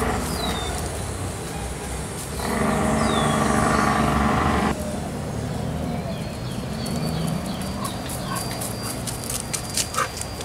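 A dog vocalizing: one steady, pitched call of about two seconds that cuts off abruptly, with birds chirping faintly.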